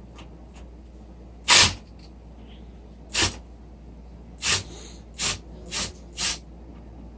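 Cordless drill fired in six short trigger bursts on an engine mounting bolt, spaced a second or so apart at first and closer together near the end.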